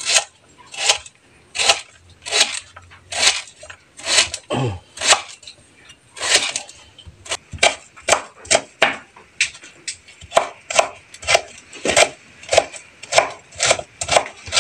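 Kitchen knife chopping a banana blossom on a wooden cutting board: a run of sharp strokes, about one a second at first, quickening to about two a second in the second half.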